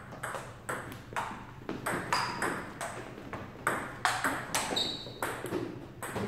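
Table tennis rally: the ping-pong ball clicking sharply back and forth off paddles and table, about two to three clicks a second, each ringing briefly.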